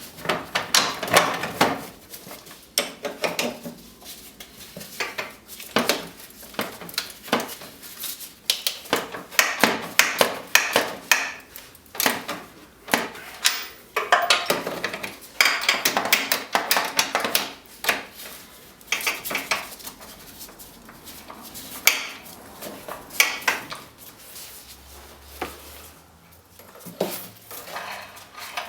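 Irregular metallic clinks, clacks and rattles of steel parts and tools being handled while a winch roller fairlead is put back together.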